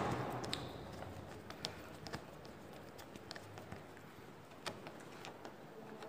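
Faint scattered clicks and taps from hands working on a wall fan's plastic grille while one of its screws is tightened.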